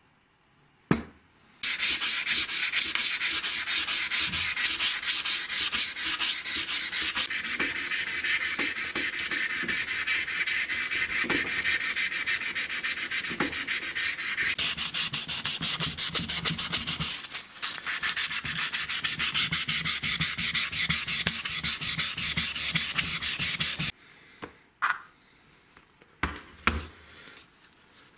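Hand sanding of a metal vise body with abrasive paper, in rapid back-and-forth strokes that pause briefly midway and stop near the end. A few light clicks follow.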